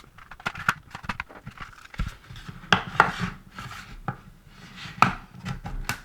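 Plastic casing of an LCD field monitor being handled and prised apart by hand, an irregular run of clicks, knocks and scrapes, the sharpest knocks about three and five seconds in.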